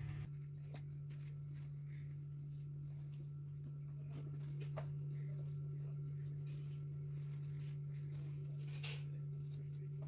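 Soft scraping and small clicks of a knife peeling potatoes by hand over a steady low hum.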